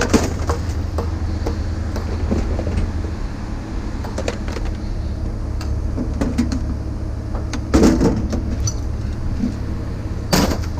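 A vehicle engine running steadily, with a few knocks and clunks: one sharp one at the start, a louder cluster about eight seconds in, and another just before the end.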